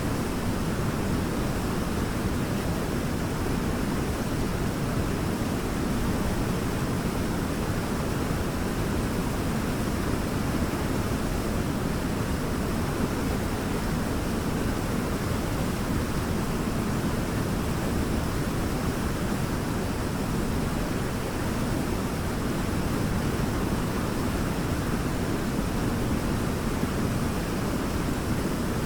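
Waterfall pouring: a steady, even roar of falling water with no breaks.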